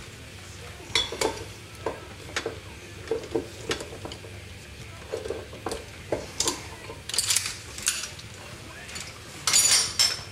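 Irregular clinks and knocks of kitchen utensils and cookware, about a dozen taps, over a faint pan sizzle, with a short louder burst of noise near the end.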